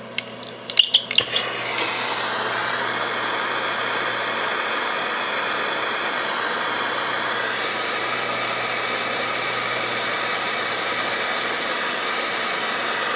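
A few sharp clicks about a second in, then a jeweller's gas torch flame hissing steadily as it heats sterling filigree wire for soldering.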